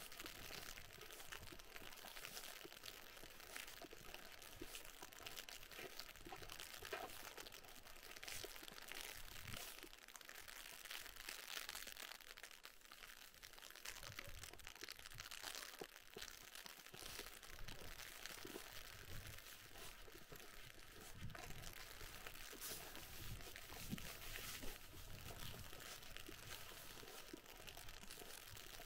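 Icy rain ticking and crackling in a fine, steady patter on an umbrella, with footsteps crunching in snow.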